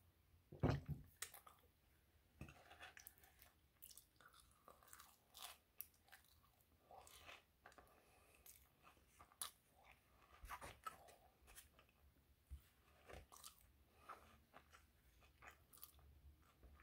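Faint close-up chewing of an English muffin with peanut butter and honey: irregular crunches, wet smacks and small mouth clicks. There is one louder dull thump about a second in, and finger licking near the end.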